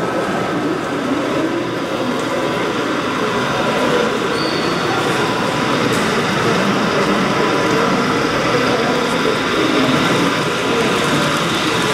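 Steady ambience of a busy hall: voices of many people talking, mixed with the running of HO-scale model trains on the layout.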